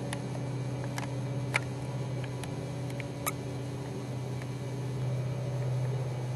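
A steady low hum with faint, scattered clicks.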